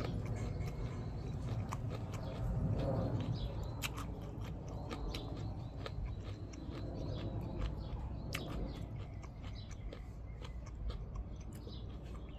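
A person chewing a mouthful of unripe green mango close to the microphone, with small scattered crunches.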